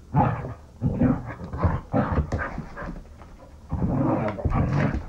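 Dogs growling and grumbling during rough play: a run of short growls, with a longer one near the end.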